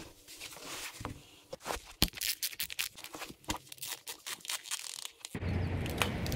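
Running shoes being pulled off over a doormat and socks peeled off: a run of irregular scuffs, lace and fabric rustles and sharp little crackles. About five seconds in it cuts abruptly to a steady outdoor rush of wind and road noise.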